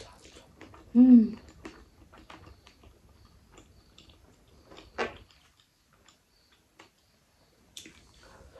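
Close-miked mouth sounds of someone eating mutton and rice by hand: chewing, lip smacks and small wet clicks, with a short hummed "mm" about a second in and a sharp smack about five seconds in.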